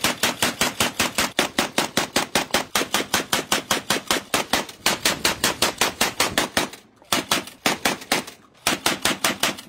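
Fully automatic drum-fed shotgun fire: a long unbroken string of shots, about five a second, then three short bursts near the end.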